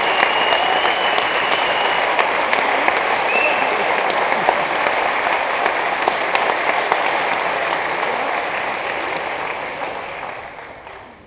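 Large audience applauding steadily, the applause fading away over the last couple of seconds.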